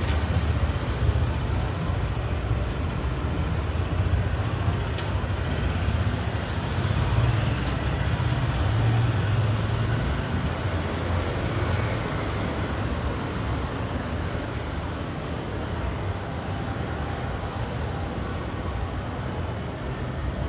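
Steady rumble of road traffic, with no single event standing out.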